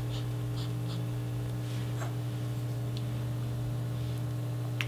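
Steady low electrical hum of room tone, with a few faint, soft clicks and rustles over it.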